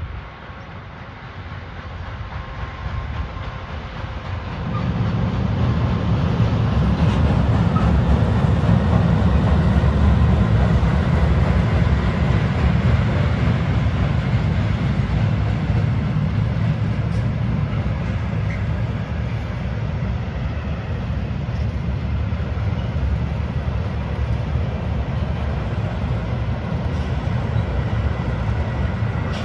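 Ludmilla heavy diesel locomotive running as it approaches and passes, its deep rumble swelling about five seconds in, followed by the steady rolling of a long freight train of tank and container wagons.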